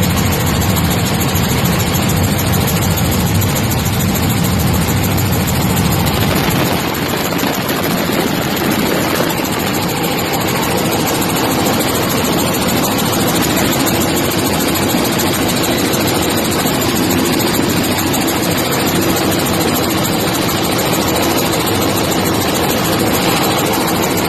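Helicopter engine and rotor noise heard from inside the cabin in flight: a loud, steady drone, a little heavier in the low end for the first several seconds.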